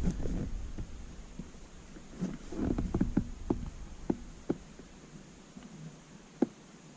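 Small hand tools and metal parts being handled: a quick run of light, sharp clicks and knocks in the middle, then one more near the end.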